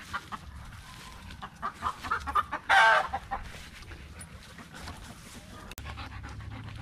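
Chickens clucking in short calls, with one loud squawk about three seconds in.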